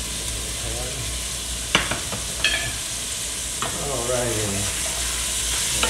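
Chunks of chicken sizzling as they brown in hot olive oil in an enameled cast-iron Dutch oven, stirred with a wooden spoon. A few sharp knocks come near two seconds in.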